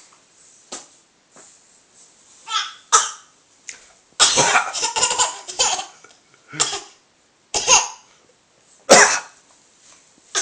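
Short coughs traded between a father and a small child, the child copying his cough, mixed with laughter. About half a dozen separate coughs, with a longer run of laughing around the middle.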